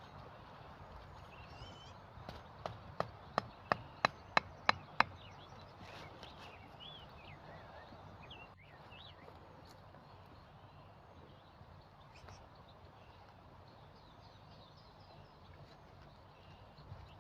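About eight sharp knocks on wood in quick succession, about three a second and growing louder, between two and five seconds in, like a wooden stake being struck. Faint bird calls over a steady outdoor background follow.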